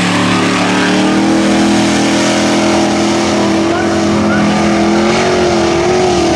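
Small-block pickup engine run hard at high revs through a mud pit, a loud, steady drone whose pitch wavers slightly as the truck ploughs through the water.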